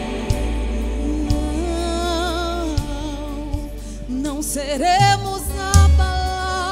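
Live worship band playing a gospel song: a woman sings long held notes with vibrato over bass guitar, electric guitar, keyboard and drum kit.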